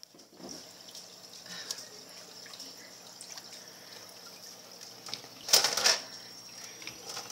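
Freshwater aquarium water bubbling and trickling as streams of air bubbles rise to the surface, over a faint steady hum from the tank equipment. A short, much louder rush of noise comes about five and a half seconds in.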